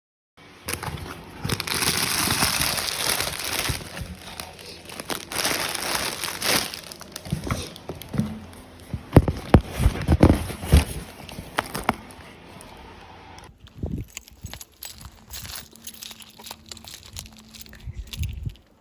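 Crinkling and rustling close to the microphone, with a cluster of sharp knocks and clunks in the middle, then quieter after about thirteen seconds.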